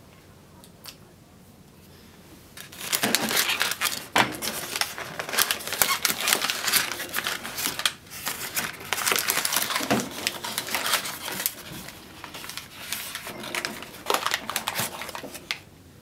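Newspaper wrapping crinkling and rustling as it is pulled open by hand, starting about three seconds in and stopping shortly before the end, with a couple of brief pauses.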